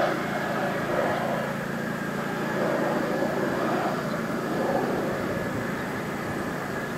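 Fighter jet on its landing approach, its engines a steady rushing drone that wavers slowly.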